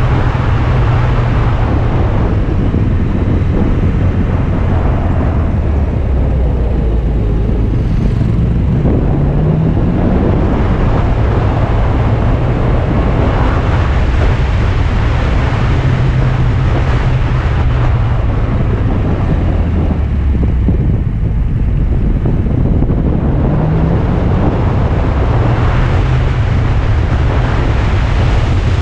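Alfa Romeo Spider's engine running on a winding mountain road, heard under heavy wind and road noise on the microphone. The engine pitch rises twice, about nine and about twenty-three seconds in, as the car accelerates out of bends.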